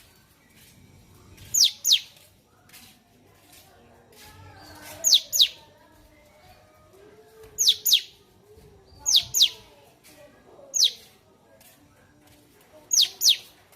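Cucak cungkok songbird calling: loud, sharp downward-slurred whistles, mostly in quick pairs, repeated every couple of seconds, with fainter lower chatter in between.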